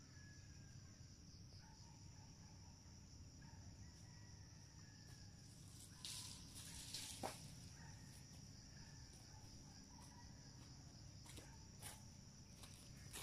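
Faint, steady high-pitched chirring of insects, typical of crickets, over a quiet rural background. A brief rustle about six seconds in.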